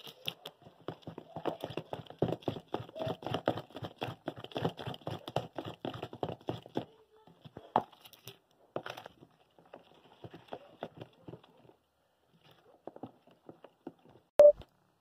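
Silicone spatula stirring thick cake batter by hand in a bowl: a quick, rhythmic run of strokes, about four a second, for the first seven seconds or so, then slower, fainter strokes. There is one sharp click near the end.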